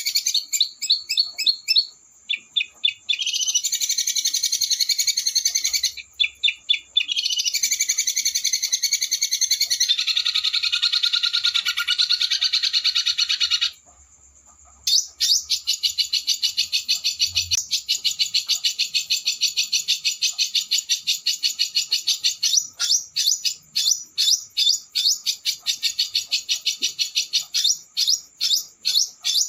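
Small songbird singing long runs of very fast rolling trills and harsh rattling 'shooting' notes. The song breaks off briefly a few times, pauses about halfway, then runs on as one long continuous rattle.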